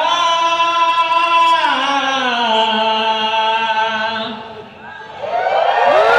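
Crowd of guests holding one long drawn-out toast cry together, the pitch stepping down once about two seconds in. The cry dies away about four and a half seconds in, then a new, louder wave of many voices shouting rises at the end.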